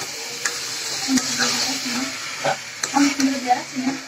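Raw chicken pieces being stirred through hot spice paste in a metal pot with a metal spatula. The food sizzles steadily, and the spatula scrapes and clacks against the pot several times.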